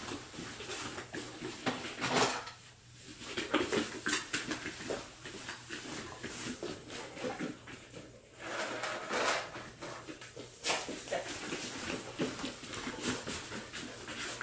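Irregular clatter and knocks of small tubs being handled and set down on a foam floor mat, with a dog moving about among them.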